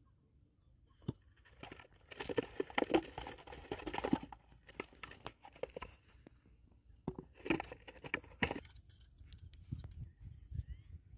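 Crunching and scraping as string-wrapped bamboo trap tubes are pushed down into sand, in two bouts of rapid crackly noise a few seconds apart, with scattered lighter clicks between them.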